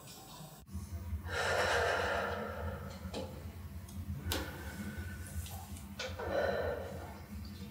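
A tense young woman taking slow, deep breaths, three long exhalations over a low steady room hum, with a few faint clicks in between.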